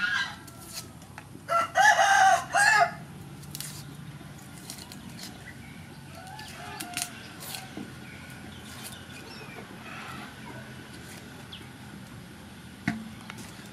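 A rooster crows about a second and a half in, the loudest sound, in a few drawn-out pitched notes. After it come faint scattered clicks and scrapes of a knife on onion skin.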